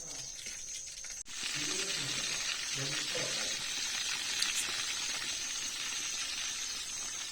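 Fish frying in coconut oil, sizzling steadily; the sizzle jumps much louder about a second in.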